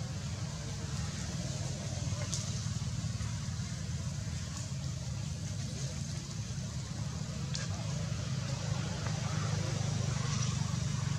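A steady low rumble, like a nearby idling engine, with a soft outdoor hiss and three faint clicks spaced a couple of seconds apart.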